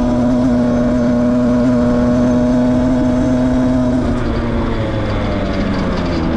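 Beta RR 50cc two-stroke enduro motorcycle engine running at steady revs while riding on a dirt track. About four seconds in, the revs drop and the pitch wavers.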